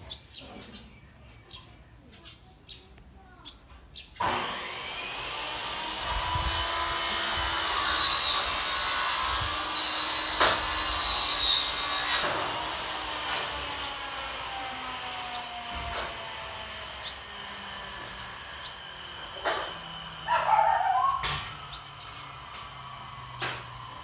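A sunbird giving short, sharp rising chirps, repeated every second or two through the second half. Behind it, a loud machine whine with several steady tones, like a power tool, builds a few seconds in and fades after the middle.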